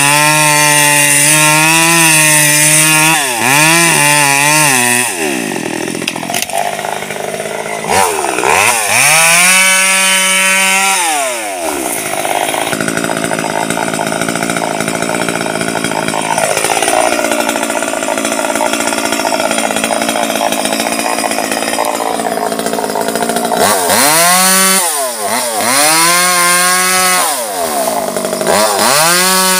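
Petrol chainsaw cutting through a mango trunk under load, then revved up and down a few times. It is left idling for about ten seconds in the middle and revved in repeated bursts again near the end.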